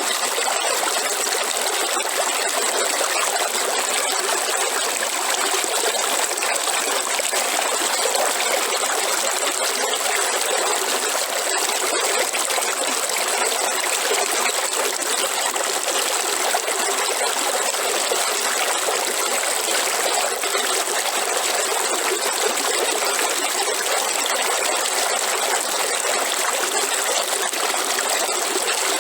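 River water flowing over stones in a steady, unbroken rush with no pauses or single events. A thin, steady high tone runs underneath the whole time.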